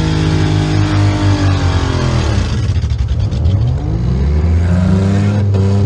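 Demolition derby car's engine, heard from the driver's seat: the revs drop over about two seconds, then climb again.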